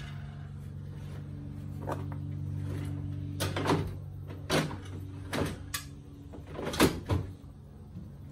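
Knocks and clatter as a folding aluminium step stool is set onto a pickup's sliding cargo bed and the slide is pushed back in. The loudest knock comes near the end as the slide closes. A steady low hum runs under the first half.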